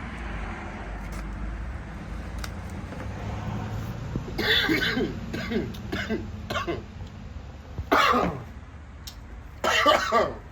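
A man coughing in a series of harsh fits about halfway in, the loudest two near the end, set off by the heat of the very spicy chicken wing he has just eaten.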